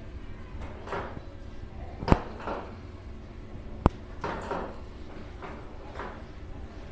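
A ping-pong ball batted by a kitten's paw clicks sharply against a hard surface twice, about two seconds in and again near four seconds, with softer scuffling noises between the clicks.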